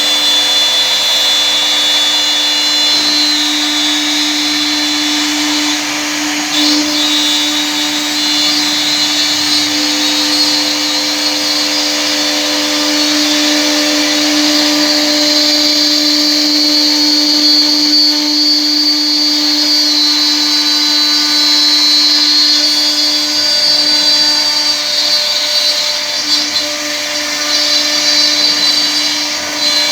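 Air-cooled 2 kW CNC router spindle running with a steady whine while the machine mills wood.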